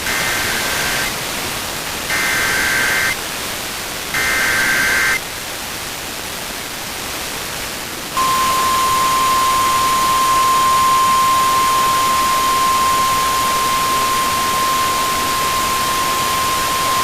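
Emergency Alert System SAME header: three harsh one-second bursts of two-tone data over a hiss of radio static, followed by the NOAA Weather Radio 1050 Hz alert tone, one steady high tone held about nine seconds. The header and tone signal an incoming severe weather warning.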